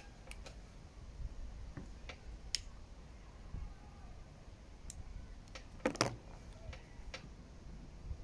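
Small scattered clicks and taps from a tobacco pipe being handled and puffed, two sharper ones about six seconds in, over a faint low rumble.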